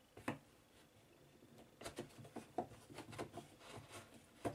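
Light clicks and knocks of a hand tool working on a drilled wooden block from a home-made CNC carriage. There is one click about a third of a second in, a run of small knocks in the second half, and a sharper knock at the end.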